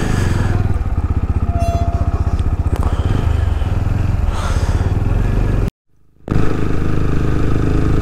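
Motorcycle engine running at low speed, a steady low rapid pulsing. It drops out for about half a second past the middle, then carries on.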